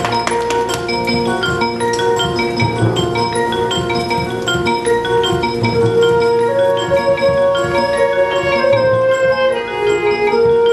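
Marching band front ensemble opening its show: marimbas, xylophone and glockenspiel play a quick run of struck notes over long held chords, with occasional low drum thuds beneath.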